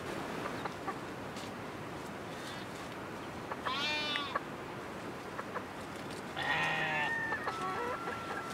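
Two short farm-animal calls about three seconds apart, over a steady background hiss. A thin high whistling tone follows the second call near the end.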